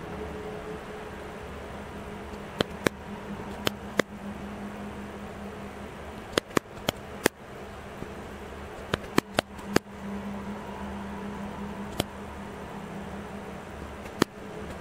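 Camera's shutter-speed and ISO dial wheels clicking from step to step: single clicks and quick runs of two to five, over a steady low hum.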